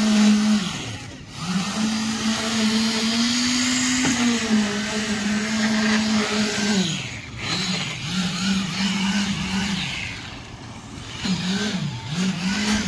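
Concrete needle (poker) vibrator running in wet slab concrete: a steady motor hum whose pitch drops and recovers several times. This compacts and smooths the freshly poured concrete.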